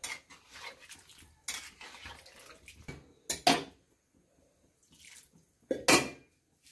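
Metal spoon scraping and knocking against a metal kadhai while stirring curry, with a couple of louder knocks midway. Near the end a metal lid is set on the pan with a loud clatter.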